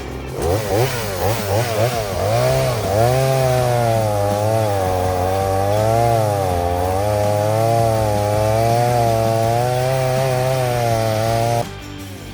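Chainsaw revved in a few quick blips, then held at high speed with its pitch wavering as the chain works through wood; it cuts off abruptly near the end.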